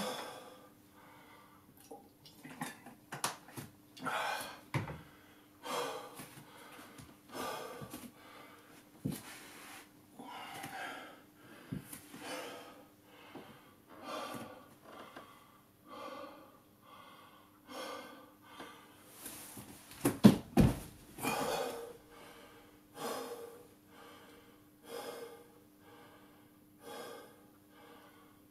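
A man breathing hard and rhythmically during exercise, one heavy breath about every second, with a loud thump about two-thirds of the way through.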